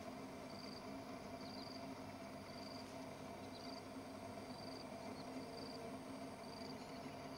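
Faint insect chirping: a short, high chirp repeating evenly about once a second, over a steady low hum.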